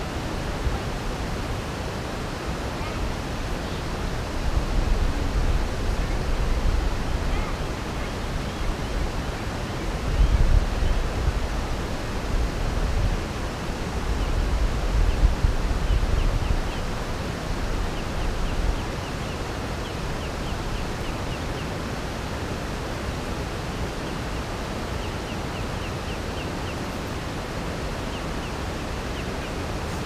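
Steady outdoor rushing noise, with low rumbling gusts that swell and fade from about four to nineteen seconds in. Faint, quick high ticks come in the second half.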